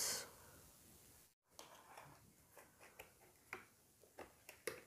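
Faint, irregular light clicks and taps of fingers handling a black plastic packaging tray holding a wireless-earbud charging case, several in a row, the sharpest near the end.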